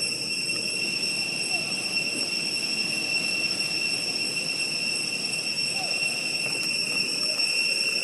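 Outdoor ambience: a steady, high-pitched insect drone that holds one pitch throughout, over low, steady background noise.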